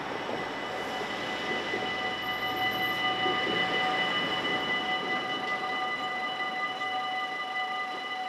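Dutch level-crossing warning bell ringing steadily as the barriers begin to come down, heard as several steady high tones over road traffic noise.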